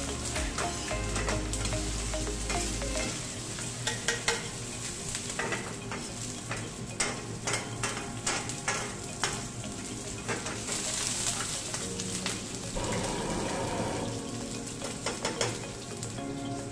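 Oil sizzling in a carbon steel skillet while the contents are stirred and pushed around. A utensil clicks and scrapes against the pan again and again, with a louder flare of sizzling a little past the middle. This is frying during seasoning of the pan.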